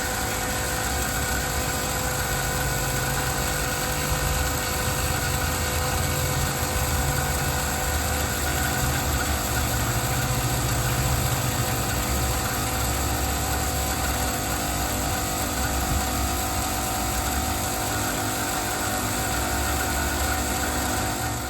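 An engine idling steadily with a low, uneven rumble under a constant hum. It stops abruptly at the end.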